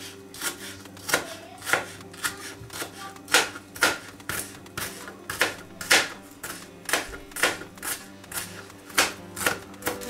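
Kitchen knife chopping red onion on a plastic cutting board, the blade knocking on the board in an even rhythm of about two strokes a second.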